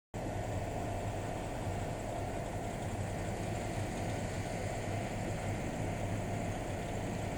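Steady drone of a KiHa 183 series diesel train's engine running, an even low hum with a steady higher tone, starting abruptly.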